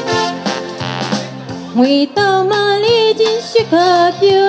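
A woman singing a slow song into a microphone over instrumental backing music; the accompaniment plays alone at first and her voice comes in just under two seconds in, with long held notes.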